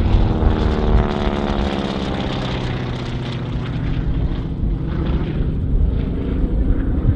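North American Harvard's radial engine and propeller droning as it flies overhead, its pitch sliding down about a second in as it passes.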